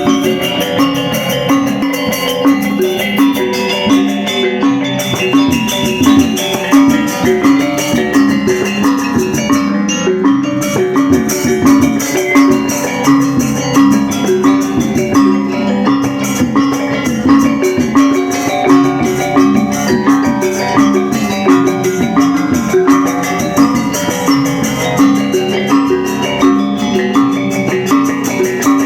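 Instrumental music with a quick, even beat and repeating struck, bell-like pitched notes over percussion, with no singing.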